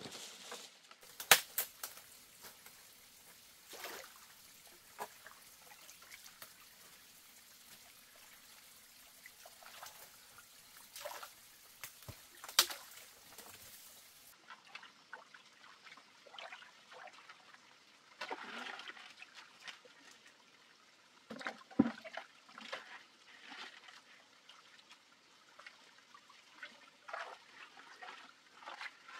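Hands and a plastic basket splashing and sloshing in shallow muddy pond water while catching fish, with irregular rustles and snaps of branches being pulled aside and a few sharp knocks.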